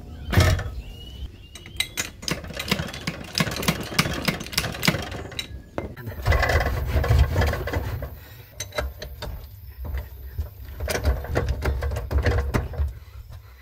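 Irregular metal clanks, knocks and scraping as the air-cooled VW engine is worked on its jack under the Kombi. About halfway through, an uneven low mechanical rumble with scattered knocks begins.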